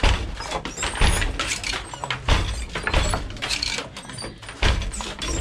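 Wooden hand loom being worked: the treadles and beater knock and clatter, a heavy wooden knock every second or so.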